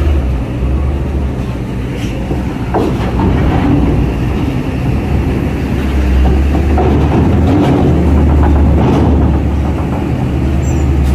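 Heavy truck's diesel engine running low and steady as it drives onto the ferry, growing louder about halfway through, with a few short knocks.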